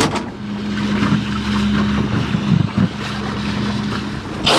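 A steady low engine hum, with a few dull knocks around the middle.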